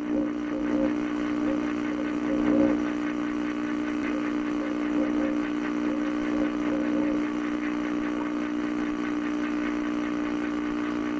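Outdoor audio recording of a steady droning hum with faint short wavering calls over it. The recordist calls these 'Bizarre Owls' and suspects Bigfoot mimicking owls, though she allows they could be ordinary owls.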